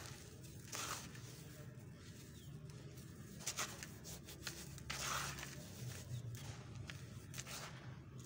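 Dry, grainy sand-cement mix crumbling and shifting as fingers dig, press and sift through it in a plastic basin. It comes as several separate crunchy, hissing runs of falling grains, about a second in, at three and a half, five and seven and a half seconds.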